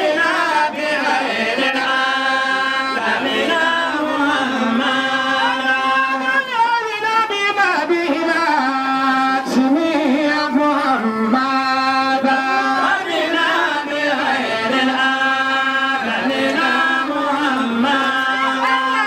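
A single voice singing a slow chant, holding long steady notes and sliding through wavering ornaments between them.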